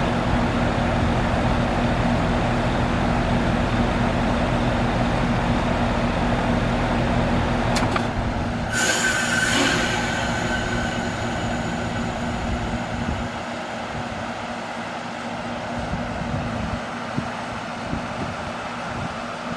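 A 2000 Philco heat pump outdoor unit runs steadily with a low hum. About eight seconds in there is a click, then a sudden hissing whoosh as the reversing valve shifts and the unit goes into defrost. The low hum of the outdoor fan then dies away over the next few seconds.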